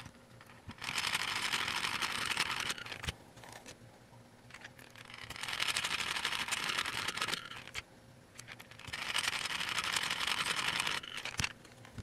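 Screwdriver driving small metal screws into the side mounting holes of a 3.5-inch hard drive on an enclosure sled: three spells of rapid scratchy clicking, each about two seconds long, with short pauses between.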